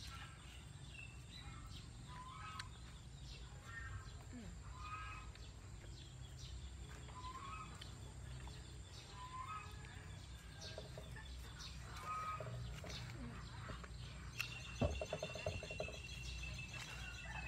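Faint outdoor background of chickens clucking and small birds calling, short scattered calls about once a second over a low steady hum.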